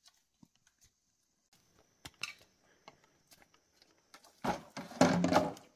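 Footsteps scuffing on rock and brush rustling, with scattered clicks, over a faint high steady tone. Near the end comes a louder scraping rustle lasting about a second.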